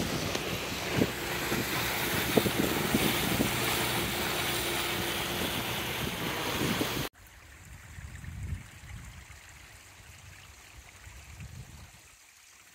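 Wind buffeting the microphone on a moving boat, over the steady running of its engine and rushing water. The sound cuts off abruptly about seven seconds in, leaving faint outdoor quiet with a brief low rumble.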